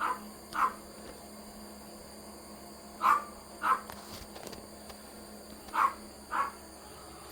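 A dog barking in pairs, two short barks about half a second apart, with a new pair every two and a half to three seconds.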